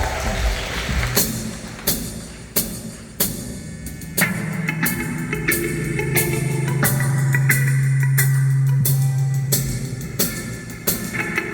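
Live rock band: a drum kit playing a steady beat of sharp hits about one and a half a second, with a held low bass note through the middle and guitar notes coming in near the end.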